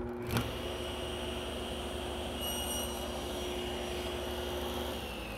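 Table saw just switched on, motor and blade running steadily, with a brief shallow shoulder cut through a small piece of wood about two and a half seconds in. Near the end the saw is switched off and its pitch starts to fall as the blade spins down.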